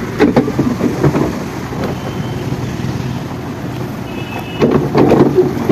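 Log flume boat moving along its water channel, with water rushing and a steady rumble. Near the end the rumbling and knocking grow louder as the boat reaches the lift ramp.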